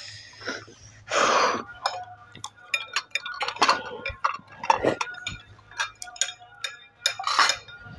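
Wooden chopsticks clicking and clinking against glass bowls while eating noodles, in many small irregular taps, with a short louder rush of noise about a second in.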